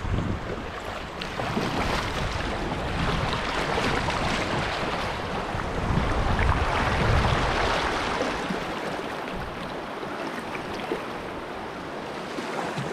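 Shallow river riffle rushing around a kayak being paddled down through it, with paddle splashes and wind buffeting the microphone. The rushing swells around the middle and eases near the end.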